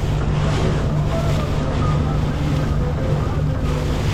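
Boat engine running steadily under the rush of water along the hull, with wind buffeting the microphone.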